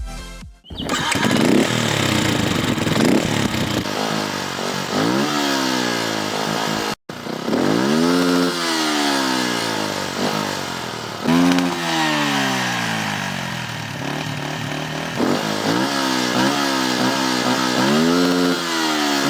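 Beta RR 125 LC's single-cylinder four-stroke engine revving repeatedly, its pitch climbing and dropping again and again, with several quick blips near the end. The sound cuts out for a moment about seven seconds in.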